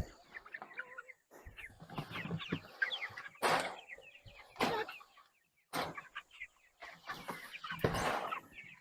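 A flock of four-week-old broiler chickens in a pasture chicken tractor, clucking and peeping continuously. Several short, louder rustling knocks break in at intervals.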